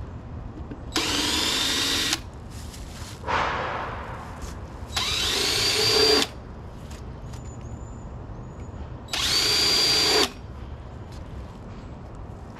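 Cordless drill with a countersink bit cutting countersinks into the screw holes of a PVC sewer pipe, in three short runs of about a second each, its motor whine rising as it spins up. A brief, fading rushing noise comes between the first two runs.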